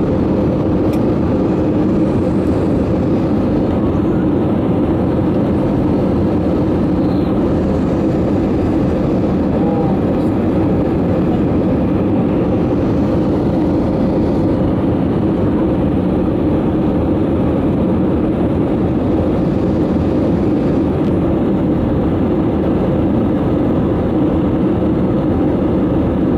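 Steady cabin noise of an Airbus A320 descending on approach to land: engine noise and rushing air heard from a window seat over the wing, a constant drone.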